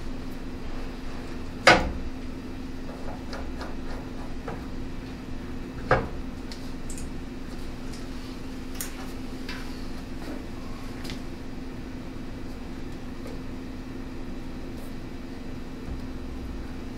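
Metal bar clamps and aluminium brace strips being set and adjusted on a radiator: two sharp knocks, one about two seconds in and another about six seconds in, with scattered lighter clicks and taps, over a steady low hum.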